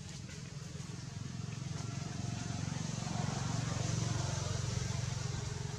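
A motor vehicle's engine running steadily, growing louder toward the middle and easing off a little near the end, as if passing by.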